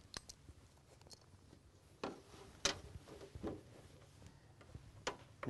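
Scattered faint clicks and light taps of hands handling the newly fitted water-feature pump, its hose and zip tie, with two sharper clicks a little past two seconds in.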